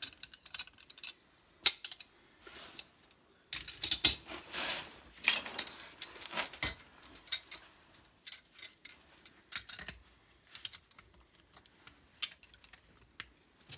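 Irregular metallic clinks and clicks of a pipe wrench and threaded pipe fittings being handled during plumbing work on a well line, with a short noisy rasp about four seconds in.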